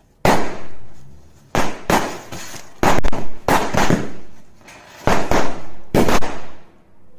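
A string of small local firecrackers (laadi) going off on the ground: a run of sharp bangs at irregular intervals, some in quick pairs or clusters, stopping about six and a half seconds in.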